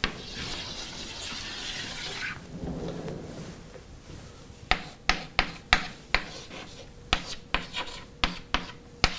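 Chalk writing on a blackboard: a scratchy stroke lasting about two seconds, then, from about halfway through, a run of sharp chalk taps and short scrapes as characters are written.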